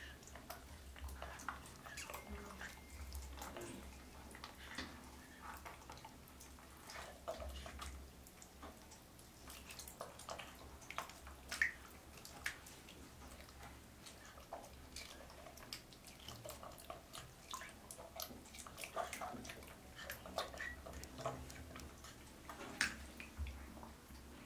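Baby macaque eating a mango while sitting in a tub of water: faint, irregular wet smacks and clicks from its mouth and the fruit, with small splashes and drips from the water.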